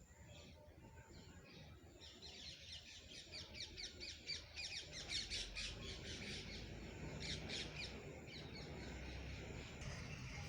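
Small birds chirping: a few scattered calls, then from about two seconds in, fast runs of high, rapidly repeated chirps, loudest in the middle, over a faint low background rumble.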